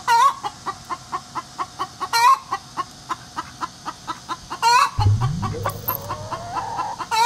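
Backyard hens clucking in a quick steady rhythm, about four clucks a second, with a louder, drawn-out call about every two seconds. About five seconds in, a low tone rises steadily in pitch over a second or two.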